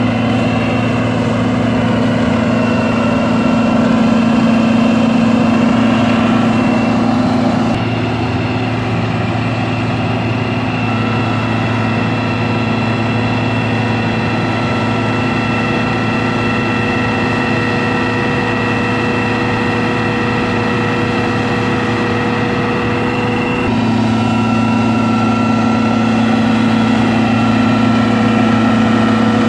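John Deere 2266 combine harvester's diesel engine running steadily at a constant speed, a low hum with faint high whining tones above it. Its tone shifts slightly twice.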